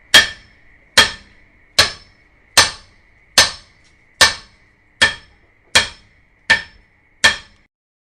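A hammer striking at an even pace, about one blow every 0.8 seconds, ten blows in all, each with a brief ring after it. The blows stop shortly before the end.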